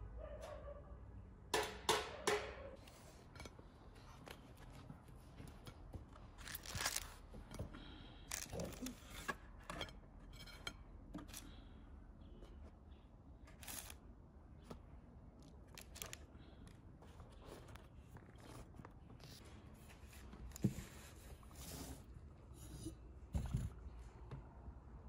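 Scattered light clicks and rustles of handling at a table: baked buns lifted from a paper-lined baking tray and set on a plate, with the loudest cluster of clicks about two seconds in.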